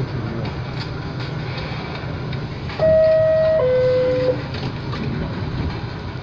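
Subway train running at speed, a steady rumble with light rail clatter heard from inside the car. About three seconds in, a loud two-note descending chime sounds, a higher note then a lower one, each under a second.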